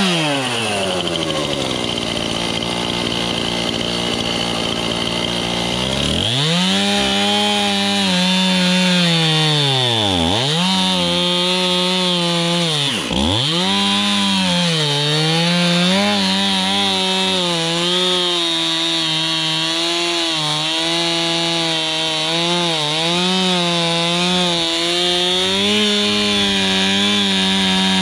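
Stihl Farm Boss two-stroke chainsaw at full throttle, dropping to idle about a second in. It revs back up after a few seconds, dips twice, then runs high with its speed wavering as it cuts firewood.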